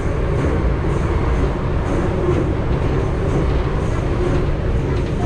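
Vintage electric train running along the track, heard from inside the driver's cab: a steady, loud rumble of wheels and running gear on the rails.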